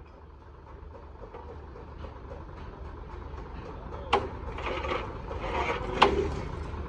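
A truck engine running with a steady low rumble that slowly grows louder. Two sharp knocks come in the second half, about two seconds apart, with a clatter between them.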